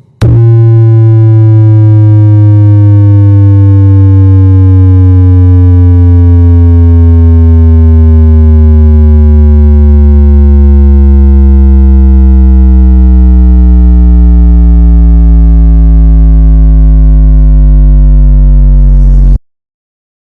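Very loud synthesized bass test tone for checking a subwoofer. It is one sustained low tone, held for about nineteen seconds while its pitch slowly falls, and it cuts off abruptly near the end.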